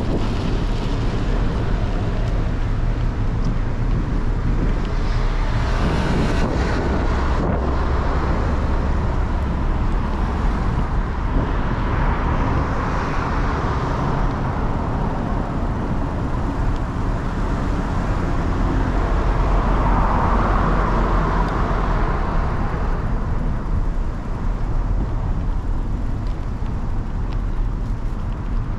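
Road traffic heard from a moving bicycle: a steady low rumble of wind and road noise with vehicle sounds swelling and fading as they pass, loudest about twenty seconds in.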